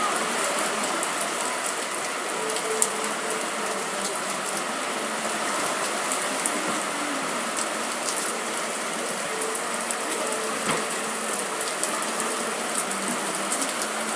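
Heavy rain falling steadily: a dense even hiss with many small ticks of drops hitting nearby surfaces, and one louder tap about three seconds in.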